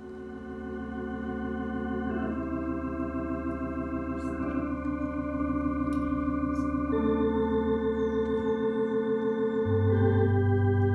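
Electronic organ playing a slow hymn in held, legato chords, swelling in a steady, gradual crescendo. A deep bass note comes in near the end.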